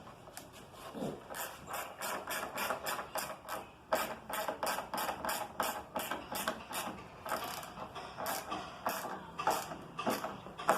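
Hand ratchet wrench clicking in quick, even strokes, about three to four clicks a second, as a nut is tightened down.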